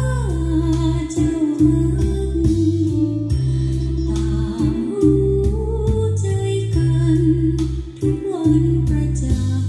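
Recorded music: a Thai song sung by a woman, with plucked-string accompaniment and a steady bass line.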